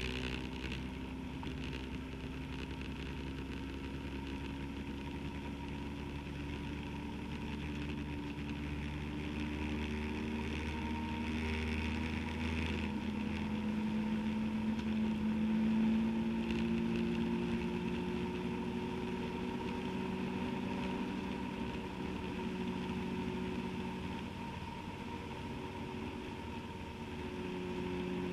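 Motorcycle engine running at road speed, its note gliding up and down with speed and shifting about halfway through.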